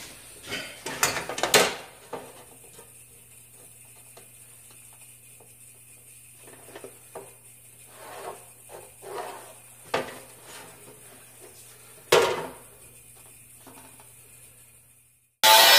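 A steel framing square and a sheet-metal panel being handled on a metal workbench: scattered knocks and clanks, the loudest about a second and a half in and again near twelve seconds, with light scraping strokes as lines are marked along the square. Near the end an angle grinder starts suddenly at full speed, cutting into the sheet metal.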